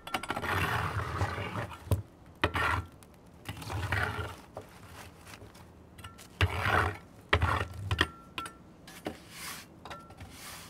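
Wire oven brush scraping across the brick deck of a wood-fired pizza oven, sweeping it clean in a series of separate strokes with a few sharp knocks in between.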